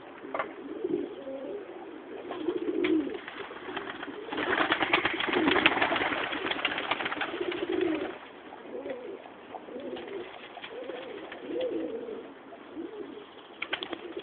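Tumbler pigeons cooing, one low, wavering coo after another. From about four seconds in, a louder rustling clatter runs for some four seconds over the cooing.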